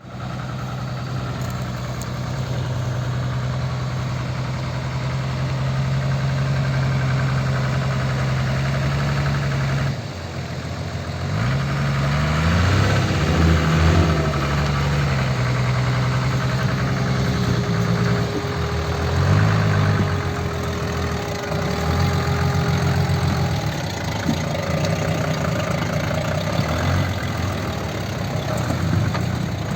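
Toyota BJ40 Land Cruiser's four-cylinder diesel engine running steadily, then, from about ten seconds in, revving up and down repeatedly as the truck is driven.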